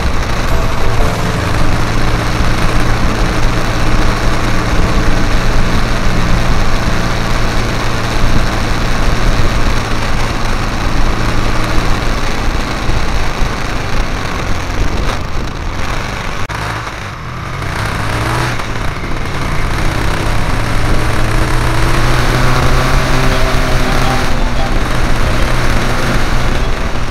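Motorcycle engine running under way, with wind and road noise over the microphone. The engine note drops and eases off partway through, then climbs again in rising pitch as the bike speeds up near the end.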